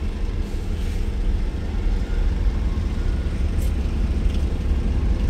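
Diesel engine of a hydraulic excavator running at a steady speed, a constant low drone heard from the operator's cab.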